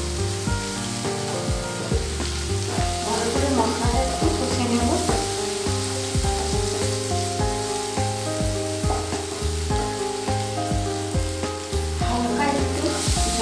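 Onion and ground-spice masala sizzling in oil in a nonstick pan while a spatula stirs it. Background music with a steady beat plays over it.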